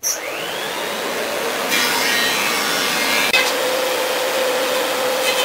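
An electric power tool switches on suddenly, its motor whine rising as it spins up, then runs steadily with a hum and a broad hiss. The noise grows louder and harsher a little under two seconds in.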